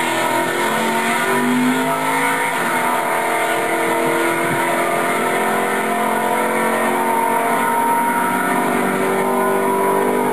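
A 1967 Ford F-100's 390 V8 launching from the drag-strip start line and pulling away at full throttle, its engine note climbing in pitch.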